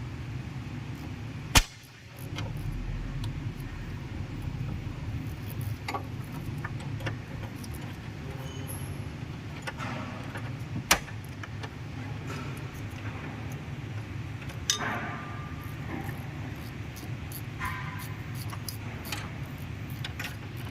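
A Tata 407 CNG truck engine, under repair for misfiring, running at idle with a steady low rumble. A few sharp clicks or knocks cut through it, the loudest about one and a half seconds in and another near eleven seconds.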